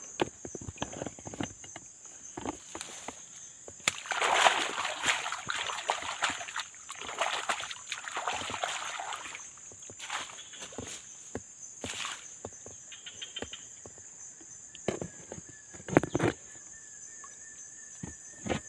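Footsteps and rustling of someone pushing through undergrowth on wet, swampy ground, with some sloshing, loudest from about four to nine seconds in, and a few sharp knocks later. A steady high-pitched insect drone runs underneath.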